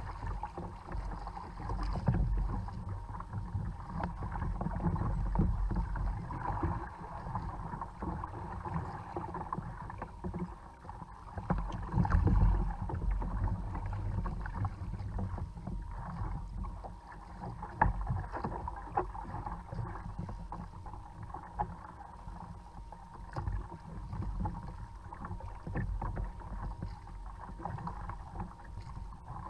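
Seawater splashing and lapping against the bow of a Hobie fishing kayak moving through choppy water, swelling and easing irregularly, over a steady low rumble.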